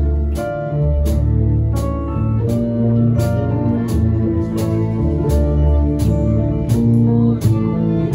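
A live hip hop orchestra playing: a steady drum beat under a deep bass line, electric guitar and bowed strings.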